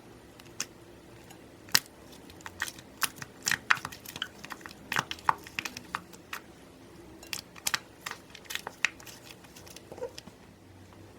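Slime being handled by hand: irregular sharp crackles and pops, bunched together through the middle and thinning out near the end.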